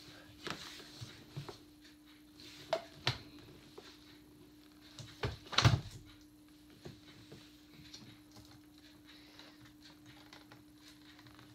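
Scattered knocks and clunks as an animatronic jumping-spider Halloween prop is handled and pressed down, the loudest cluster a little past the middle, over a steady low hum.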